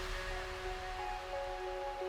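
Background music: a quiet passage of held synth notes with no beat.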